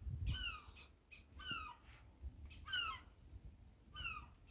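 A gull calling over and over, a short falling call about once a second, four times, over a low rumble of wind on the microphone.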